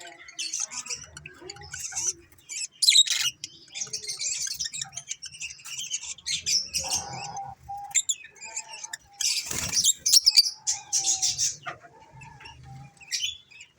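African lovebirds chirping and chattering continuously in shrill, rapid calls, with one loud harsh burst a little past the middle.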